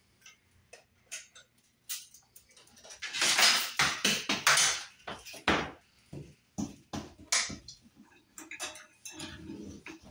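Flexible metal conduit clinking and rattling as it is handled and its end fitting is worked into a metal electrical box, with a series of short, sharp metallic clicks.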